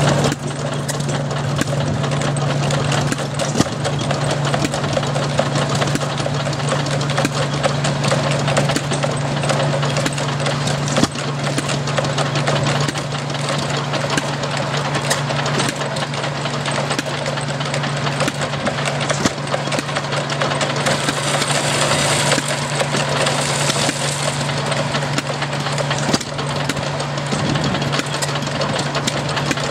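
Antique stationary gas engine running and driving a flat-belt corn sheller, a steady low hum under continuous mechanical clatter and knocking.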